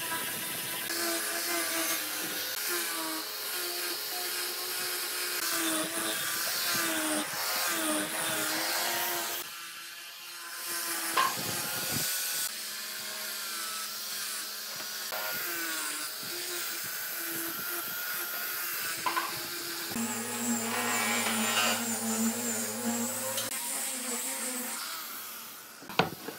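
A small high-speed electric power tool running, its pitch wavering as the load on it changes, cutting off and changing abruptly several times, with a sharp click or two.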